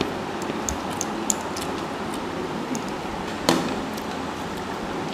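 Plates clinking against each other: a few light clinks, then a sharper knock about three and a half seconds in as one plate is tipped over another, over a steady background hiss.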